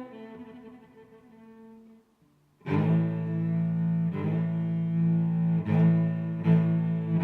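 Background music of low bowed strings: a phrase fades away, a brief silence about two seconds in, then loud, sustained low notes start again.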